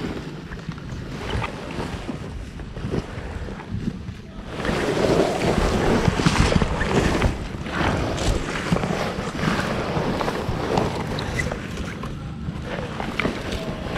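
Wind buffeting a body-worn camera microphone, with rustling and small knocks mixed in, growing louder about four and a half seconds in.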